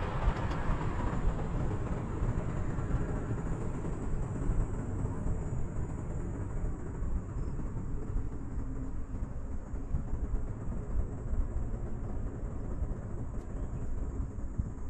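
A cable-car gondola cabin riding along its haul cable, giving a steady low rumble with unsteady wind-like noise.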